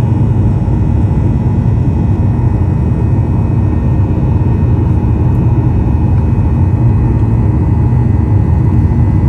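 Steady cabin noise of a Ryanair Boeing 737 in flight: the jet engines and the rush of air give an even low rumble, with faint steady tones above it.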